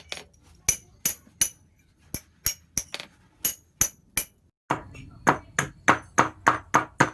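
Hammer blows on steel on an anvil, forging a knife blade: a steady rhythm of sharp, ringing strikes, about three a second. After a brief break about two-thirds through, the blows come at the same pace but sound duller and lower.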